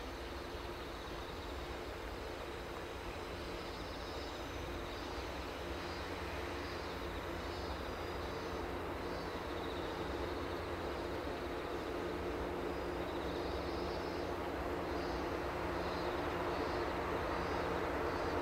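DE15 diesel locomotive's engine running with a steady hum over a low rumble, growing louder as the locomotive approaches hauling its train.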